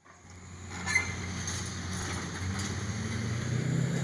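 Demolition excavator's diesel engine running steadily, fading in over the first second, with a sharp crack or clank from the wrecking work about a second in and a fainter knock later.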